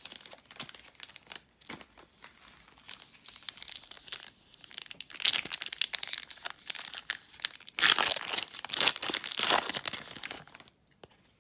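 Foil wrapper of a Donruss Optic basketball card pack crinkling as it is handled and torn open. The crinkling is loudest about five seconds in and again from about eight to ten seconds in.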